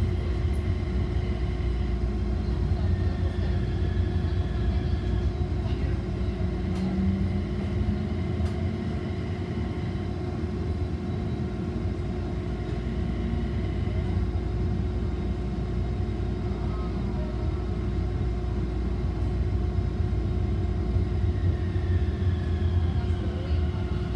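Toyama Chitetsu city streetcar running along the street, heard from inside the car: a steady rumble of wheels on rails with the traction motors' whine over it. Near the end the whine falls in pitch as the tram slows.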